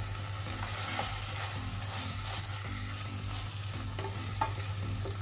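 Baby potatoes and fenugreek leaves sizzling in a hot metal pan while a spoon stirs them, with a few short clicks of the spoon against the pan about a second in and near the end. A steady low hum runs underneath.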